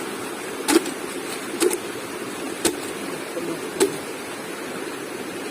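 Steady rush of flowing river water, with a handful of short sharp clicks or knocks at irregular intervals.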